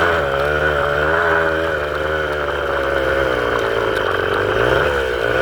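A small engine running, its revs rising and falling unevenly.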